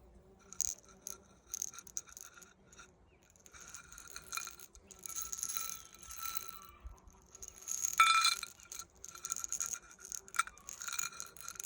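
Small metal finds, old shoe nails and square nails, rattling and clinking together in irregular bursts with a faint ring, the loudest shake about eight seconds in.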